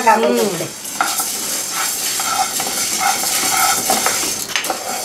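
Wooden spatula stirring split urad dal as it dry-roasts in a non-stick pan: repeated scraping and the rustle of the lentils sliding over the pan, with a knock near the end.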